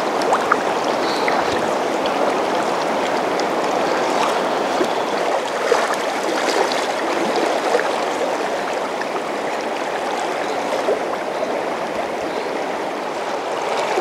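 Large, fast-flowing river rushing over shallow rapids: a steady, even rush of water, with small splashy ticks here and there.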